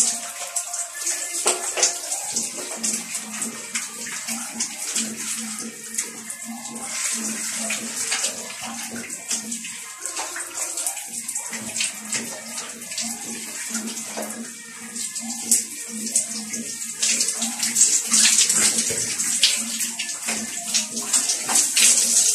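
Shower head spraying water down onto a person and the floor: a steady hiss of spray with uneven splashing, louder near the end.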